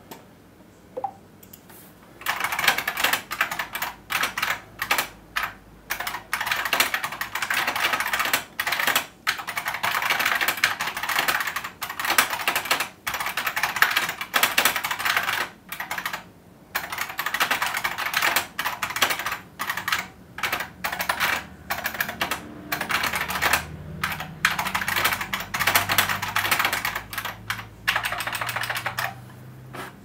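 Computer keyboard being typed on in quick bursts of clicks with short pauses between them.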